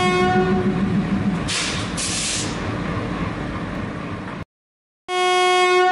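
Train horn sounding over a low rumble, with a burst of hiss about a second and a half in; the sound cuts off suddenly, and after a short silence a locomotive horn sounds again near the end.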